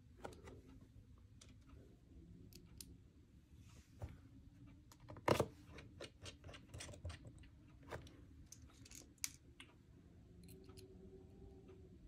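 Light, scattered clicks and ticks of a precision screwdriver driving screws back into a MacBook Pro's aluminium bottom cover, with one louder click about five seconds in.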